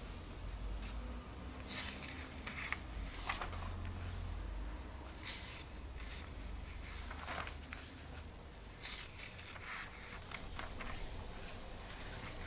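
Glossy comic-book pages being turned and smoothed by hand: a series of short papery swishes and rustles, irregularly spaced a second or so apart.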